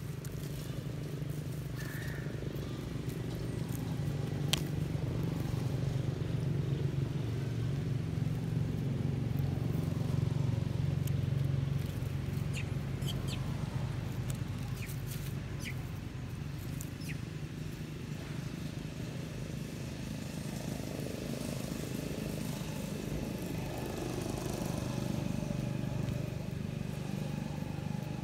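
A motor engine running steadily with a low hum, swelling a little in the first half. Faint scattered clicks and rustles sit on top.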